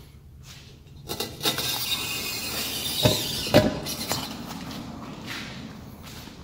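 A razor blade slicing through the polyester screen mesh along the outside edge of the frame, a continuous scratchy hiss. Two sharp knocks about halfway through, half a second apart.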